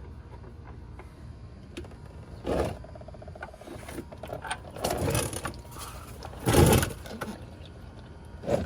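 Impact wrench hammering in several short bursts, the loudest about two-thirds through, working to break loose a stuck oil drain plug.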